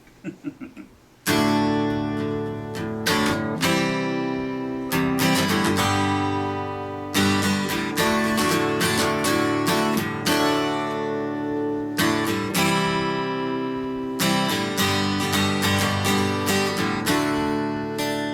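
Acoustic guitar strumming the introduction to a song, starting about a second in with rhythmic chords.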